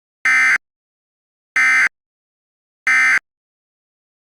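Three short, identical Emergency Alert System SAME data bursts, high and buzzy, about a second apart: the end-of-message (EOM) code that closes an EAS alert.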